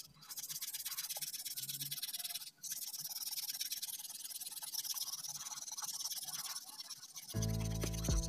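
Steel wool pad scrubbing a copper-clad circuit board with Pitambari cleaning powder, rubbing the printed resist off the etched copper traces. It is a fast, steady, scratchy rasp that breaks off briefly about two and a half seconds in. Background music with a low beat comes in about a second before the end.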